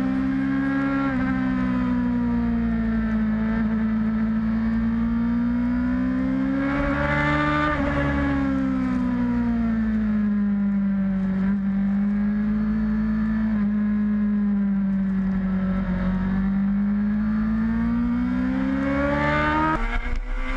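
Sport motorcycle engine running at high revs, heard from its own onboard camera: a steady high note that climbs sharply about seven seconds in, then sinks slowly and climbs again. The note breaks up shortly before the end.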